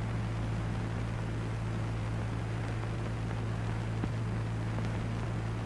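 Steady low hum and hiss of an old film soundtrack, with one faint click about four seconds in.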